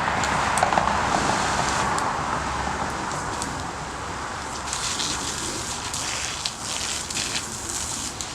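Water spraying from a garden hose spray head, a steady hiss during a leak test of a newly installed retractable hose reel. About five seconds in the hiss turns brighter and patchier.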